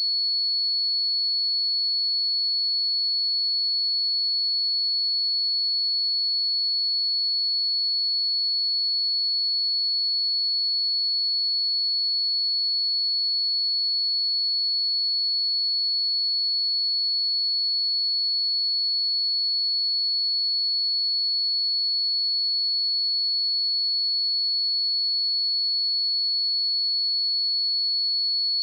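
A pure 4395 Hz sine-wave test tone, a single steady high-pitched whistle held at an even level without a break.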